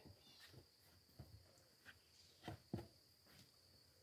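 Faint knocks on a wooden plank platform as a man shifts and gets to his feet, the two loudest close together a little past halfway. A steady high insect drone goes on underneath.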